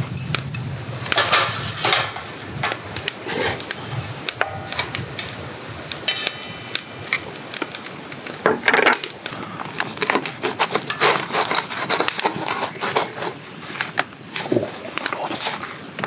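Metal spatula scraping and clinking in an iron skillet, with a run of taps and knocks as pancakes are lifted out and set down on a wooden board.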